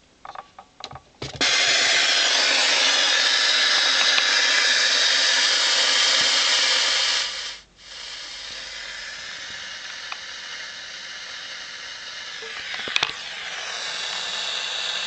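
Broadband hiss from a noise generator, amplified by an OC13 germanium transistor stage and played through a loudspeaker. A few clicks come first and the hiss starts loud about a second and a half in. It cuts out briefly near the middle, then returns quieter with a more banded tone and swells again near the end.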